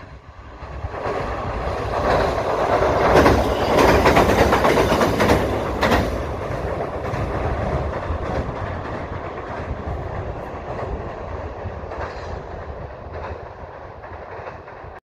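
Electric train crossing a steel girder railway bridge: the rumble and rail clatter of its wheels on the steel spans builds over the first few seconds, is loudest around the middle, then slowly fades as the train moves away.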